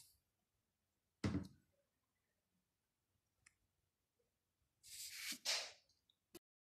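A single dull knock about a second in, then paper sheets rustling and sliding under a hand for about a second near the end, closed by a short click.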